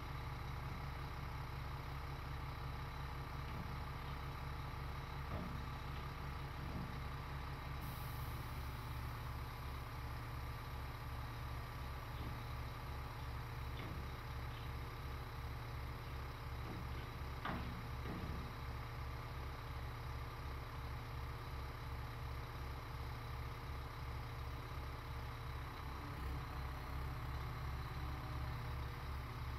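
Diesel engine of a Liebherr mobile crane running steadily with a low, even throb. A few faint knocks sound over it, the clearest about halfway.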